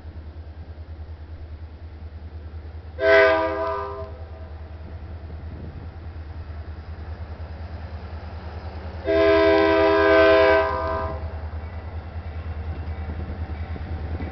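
Union Pacific diesel locomotive's air horn blowing twice as the train approaches: a short blast about three seconds in and a longer blast about nine seconds in, over a low steady rumble.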